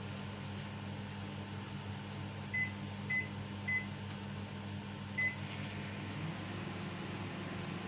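Microwave oven keypad beeping four times as the 3-minute timer is set, over a steady low hum; shortly after the last beep the oven starts running and its hum changes.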